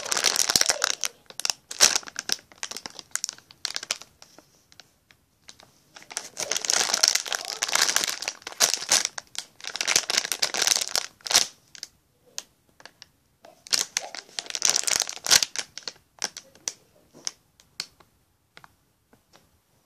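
Clear plastic packaging crinkling as fingers squeeze a unicorn squishy toy through it. It comes in several long stretches with short pauses between, then thins to scattered single crackles near the end.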